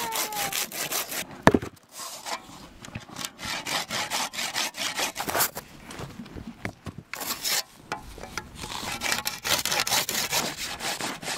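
Hand saw cutting through a wooden log, with repeated rasping back-and-forth strokes. A sharp knock comes about one and a half seconds in, then a brief pause before the sawing resumes.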